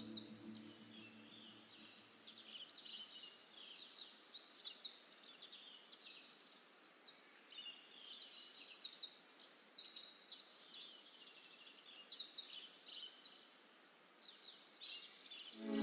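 A faint chorus of many small birds chirping, with dense, overlapping quick high chirps and a few short held whistles.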